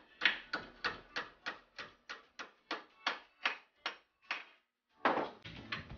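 Hammer blows on a round steel rod clamped in a bench vise, bending the rod over flat, at about three blows a second. The hammering stops a little after four seconds in, followed by one louder knock about a second later.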